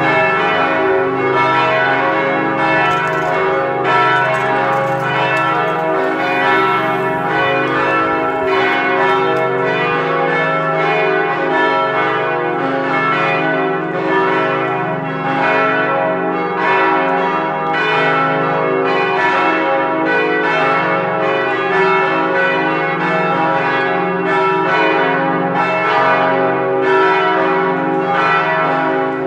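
Full peal of four swinging church bells tuned C sharp, E, F sharp and G sharp, ringing together continuously with overlapping strokes, several a second.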